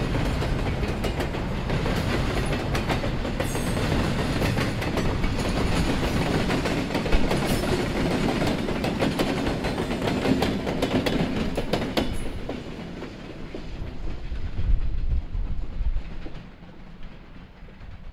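Double-stack container train rolling past close by: steel wheels rumble and click over the rail joints, with a diesel locomotive going by about ten seconds in. After about twelve seconds the sharp clicking fades, and near the end it drops to a quieter, distant rumble.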